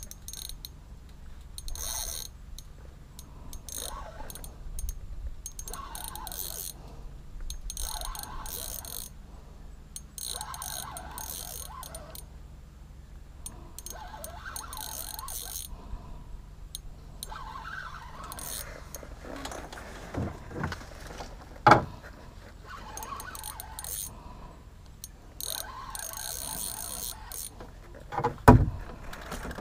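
Spinning reel being cranked in short spurts of a second or two, its gears whirring and clicking as line is wound in. Two sharp knocks, the louder one near the end.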